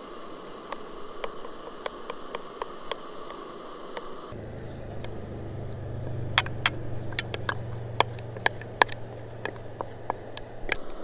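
Wooden spatula scraping and tapping in a frying pan over a canister camp stove, with the stove's steady burner noise under it. In the second half comes a run of sharp taps as rice is knocked out of a bowl into the pan with the spatula.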